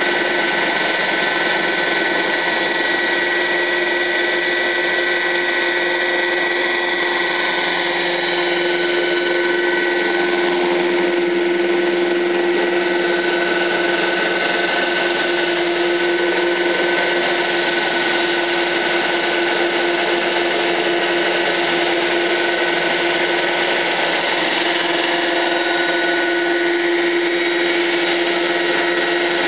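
Helicopter turbine engine and rotor running steadily as the helicopter hovers low and climbs: a constant rush with a steady high whine.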